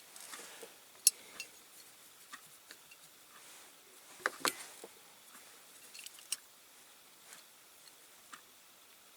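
Faint, scattered clicks and taps of a small diecast toy truck and its wheels being handled while rubber tyres are pushed onto them, with a sharper click about a second in and a pair of taps near the middle.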